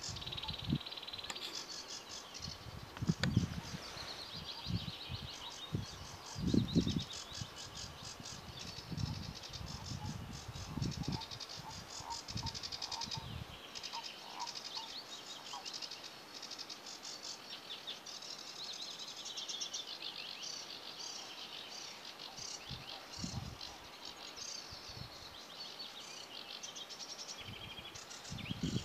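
Sedge warbler singing in the reedbed: a long, fast, scratchy chattering song that runs on with only short breaks. Irregular low rumbles, mostly in the first half, sit underneath it.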